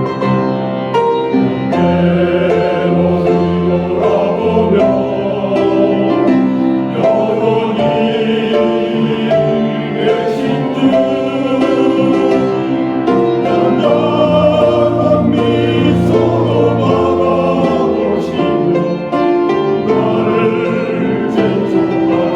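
Church choir singing a gospel hymn in sustained, steady phrases, with instrumental accompaniment.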